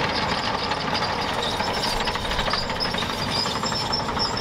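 John Deere 700L crawler dozer working a dirt track: its diesel engine running steadily under a rapid clatter from the steel tracks.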